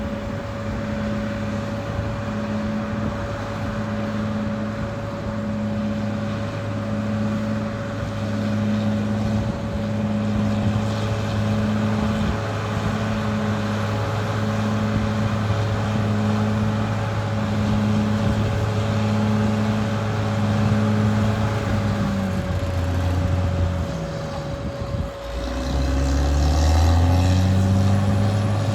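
Caterpillar D6R XL bulldozer's diesel engine running steadily under work, with an even pulsing beat in its note. Near the end the engine note sags briefly, then climbs back up.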